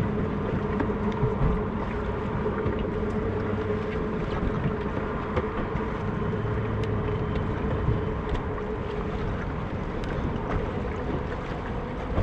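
Steady wind and water noise on a small boat, with a low constant hum and a few light clicks scattered through.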